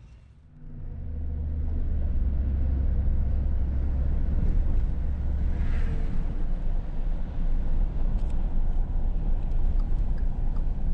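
Car driving, heard from inside the cabin: a steady low rumble of engine and road noise that swells up about half a second in as the car gets moving.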